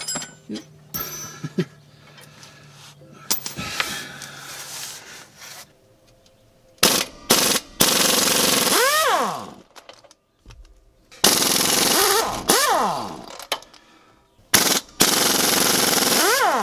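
Ingersoll Rand pneumatic impact wrench hammering on bolts to break them loose. There are a couple of brief blips, then three longer runs of a second and a half to two seconds each. Each run ends with the air motor's pitch falling as it spins down after the trigger is released. Quieter clinks of tool handling come first.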